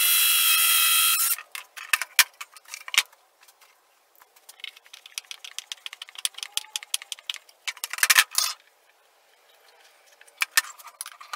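Cordless drill running at speed as it bores a hole through a painted wooden cabinet door, stopping about a second in. After it come scattered small clicks and rattles as the knob and its screw are handled and fitted.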